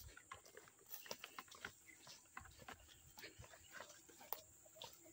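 Faint footsteps through grass and brush, with leaves and stems brushing past: a scatter of soft, irregular rustles and crackles.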